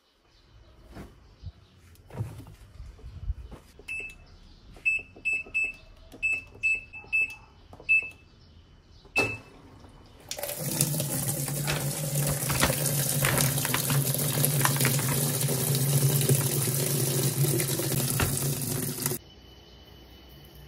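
Top-loading washing machine: a series of short, high electronic beeps from its control-panel buttons, then water rushing loudly into the tub with a low steady hum as the machine starts filling, cutting off suddenly near the end.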